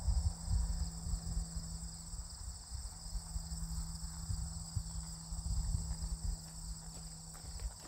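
Horse's hooves striking turf at a moving gait, soft and dull. Steady insect chirring runs high in the background over an irregular low rumble.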